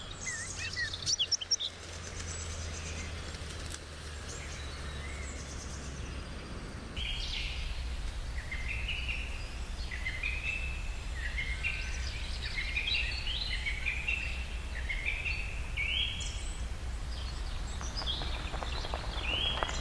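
Woodland ambience: many birds chirping and calling over a low steady rumble. The calls grow busier about a third of the way in.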